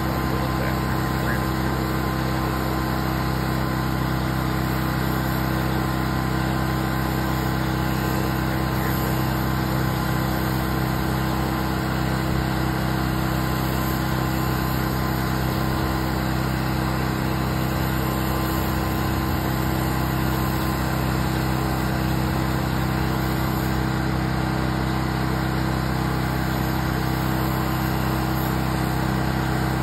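A 3,000 PSI pressure washer's engine running steadily at constant speed, with the hiss of the wand's high-pressure water jet striking concrete.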